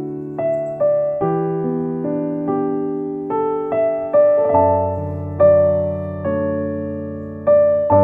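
Background music: a slow piano melody over held chords, each note struck and left to fade.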